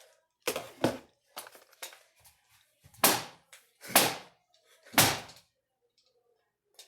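A plastic toy lightsaber being banged hard to break it open: a few light knocks, then three heavy thunks about a second apart.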